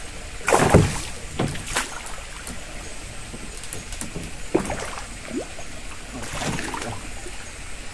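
Water splashing and knocking at the side of a small wooden boat as a landing net is dipped into the water. There are several short splashes, the loudest about a second in.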